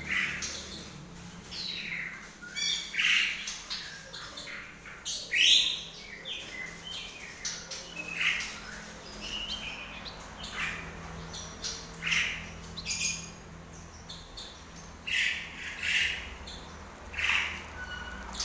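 Bengalese finch (Japanese munia) calling: short, harsh chirps repeated at irregular intervals, a few each second at the busiest.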